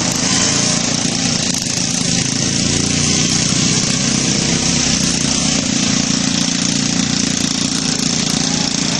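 Riding lawn tractors' small gasoline engines running steadily as the tractors are driven around, over a steady hiss.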